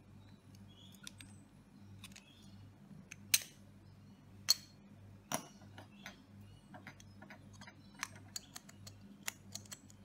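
Scattered small metal clicks and taps from a screwdriver working on a brass knob lock's cylinder assembly as it is taken apart, with a few sharper clicks about three, four and a half and five seconds in and a run of light ticks near the end.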